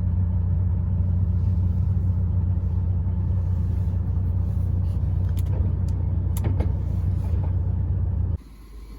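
Heavy truck rumbling: a steady, loud low drone of engine and cab noise, which cuts off suddenly near the end.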